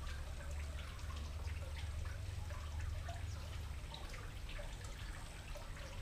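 Water trickling and dripping steadily, with many small irregular drops and a low rumble underneath.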